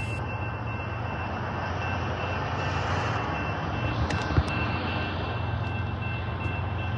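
Railroad grade-crossing bell ringing steadily over the low rumble of an approaching diesel freight train and road traffic, with a sharp knock about four seconds in.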